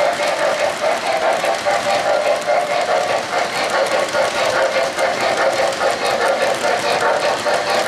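Lionel O-gauge coal hopper cars rolling over three-rail track: a steady metallic rolling rumble with many small clicks from the wheels.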